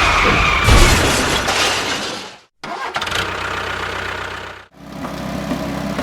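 Engine or motor sounds in three short clips, each cut off suddenly; the last clip is a steady running hum.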